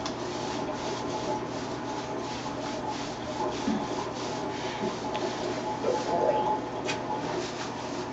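Hands scrubbing shampoo lather into a wet German Shepherd's fur, a steady run of irregular rubbing strokes.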